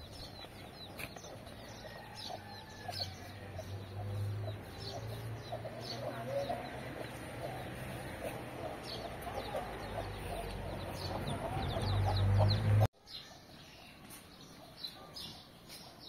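Chickens clucking with small birds chirping. A low hum builds up and the sound cuts off suddenly about thirteen seconds in.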